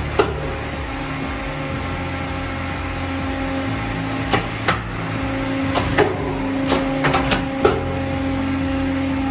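Bank of solenoid-operated hydraulic directional valves clacking sharply as they shift, over the steady hum of the running hydraulic system. One click comes just after the start, then a cluster of clicks in the second half.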